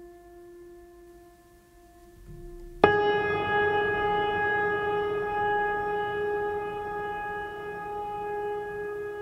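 Steady electrical humming tone from the stopped Hong Kong tram. About three seconds in it jumps suddenly much louder and a little higher with a click, then slowly fades while holding its pitch.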